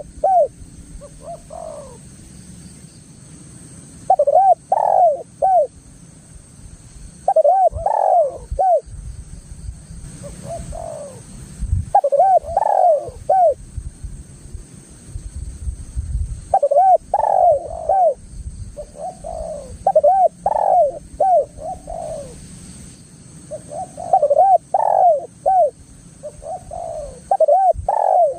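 Spotted dove cooing: phrases of several arched coos, repeated every few seconds, over a low background rumble.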